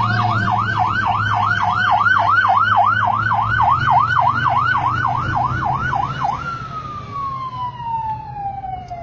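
Emergency vehicle siren on a fast yelp, its pitch sweeping up and down about three to four times a second. About six seconds in it switches to one long tone that slowly falls in pitch.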